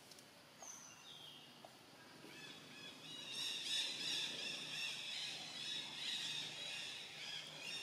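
Birds chirping and calling in a dense, high-pitched chorus that swells in about two seconds in, preceded by two short whistled notes.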